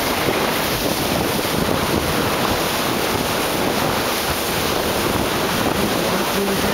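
Steady wind noise on the microphone over the rush of water along the hull of a moving tour boat.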